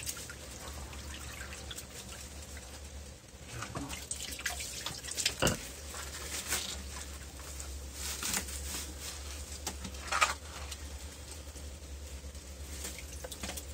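Shallow water splashing and dripping in irregular bursts, the loudest about ten seconds in, over a low steady hum.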